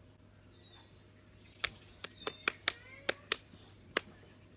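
A run of about eight sharp clicks or taps, irregularly spaced over two or three seconds, with faint bird chirps behind them.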